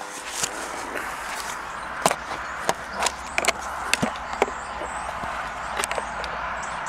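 Sharp wooden knocks and clatter of wooden table parts being handled and shifted, with a cluster of quick knocks around the middle, over a steady hiss.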